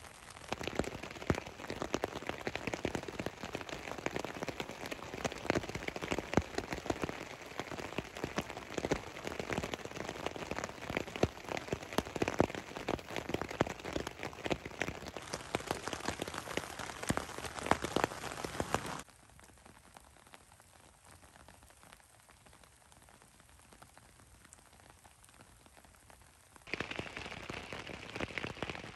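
Rain falling on a tent: a dense, irregular patter of countless drops hitting the fabric. About two-thirds of the way in it drops to a faint patter, then returns at full strength near the end.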